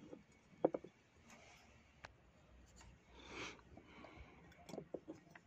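A few faint clicks and a soft scrape about three seconds in: a small screw and spring being handled and fitted into a GM12F carburettor body by hand.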